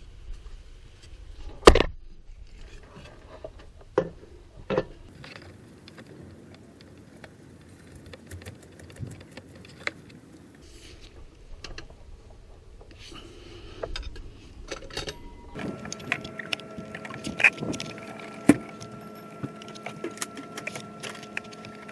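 Hand tools and metal parts clicking, clanking and knocking in irregular bursts during engine reassembly, with a few sharp knocks in the first five seconds. About two-thirds of the way through, a steady hum of several tones starts and runs on under the clicking.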